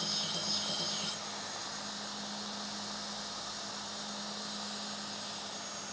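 Belt grinder running with a steady motor hum. For about the first second the axe edge is held against the surface-conditioning belt, adding a high hissing grind. The grinding then stops and the machine runs on.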